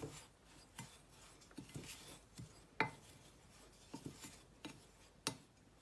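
Wooden spoon stirring dry ground spices in a glass measuring jug: a soft gritty scraping, with a handful of sharp taps as the spoon knocks the glass.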